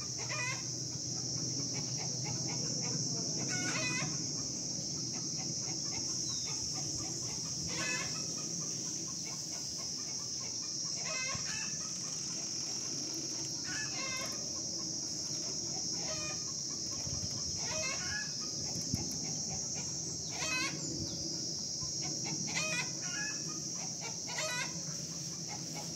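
Chickens clucking in short calls every few seconds, over a steady high-pitched insect drone.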